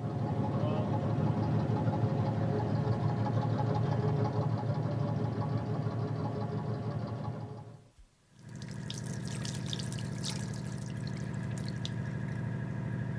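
A motor barge's diesel engine runs steadily while the vessel is manoeuvred alongside a quay. About eight seconds in, the sound drops out for a moment. Then water splashes and runs at a washbasin over a steady low hum.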